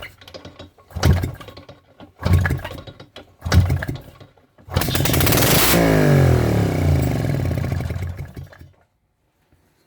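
Soviet 2SD two-stroke engine, run without a carburettor on petrol poured into the cylinder, turned over four times, then firing and running for about four seconds before its pitch falls and it dies as the fuel runs out.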